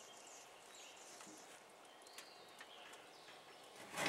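Faint birds chirping, with a short noisy scrape near the end as a large rock is worked out of a trailer.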